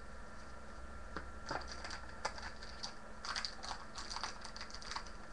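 Trading card pack and cards handled by hand: irregular crinkling and crackling of the pack wrapper and cards, starting about a second in.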